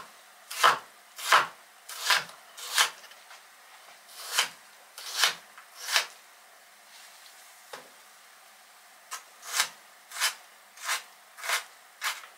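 Kitchen knife cutting raw potatoes on a cutting board, one short scratchy stroke at a time, about every two-thirds of a second, with a brief pause midway.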